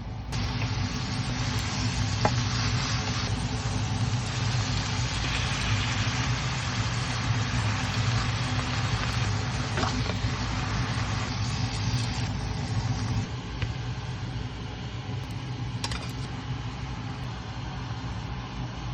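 Food sizzling in a hot frying pan, a steady hiss over a low hum, with a few faint clicks; the sizzle eases a little about two-thirds of the way through.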